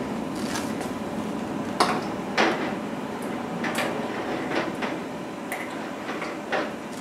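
Metal jar tongs knocking against glass canning jars and the stainless steel canner pot as jars are set onto the rack in the water. Several separate sharp clinks and knocks over a steady low hiss.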